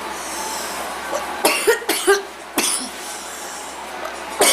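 A young woman coughing from a bad cold: a run of three quick coughs about one and a half seconds in, another just after, and a loud cough at the end.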